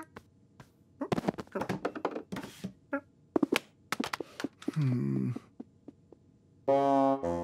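Cartoon sound effects of a TV remote clattering off a small wooden side table onto the floor: a quick run of taps and knocks. A man's low groan follows, falling in pitch, and near the end a short, steady low 'mm'.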